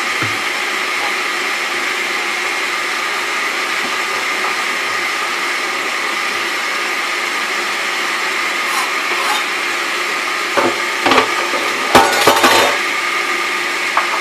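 Steady machine-like hum with a few whining pitches in it. Toward the end comes a loud run of knocks and clatter as chopped cooked chicken breast is scraped off a cutting board with a kitchen knife into a stainless steel dog bowl.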